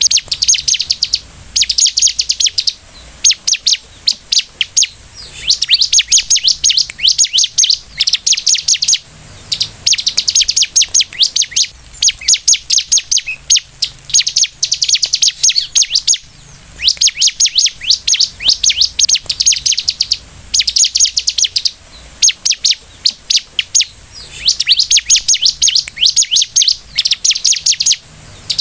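Bar-winged prinia (ciblek) singing: rapid runs of high, sharp chips, each run about a second long, repeated over and over with short pauses between.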